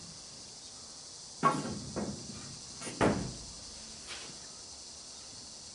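Wooden boards knocking against each other and the wooden box walls as a roof frame is lifted into place: two sharp knocks about a second and a half apart, with a couple of lighter ones.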